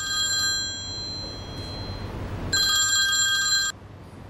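Telephone ringing: one ring fades out about a second in, and another starts about two and a half seconds in and cuts off suddenly.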